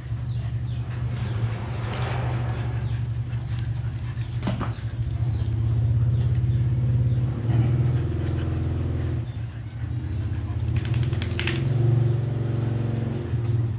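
Steady low machine hum, a little louder about six seconds in and again near the end, with a few faint brief higher sounds over it.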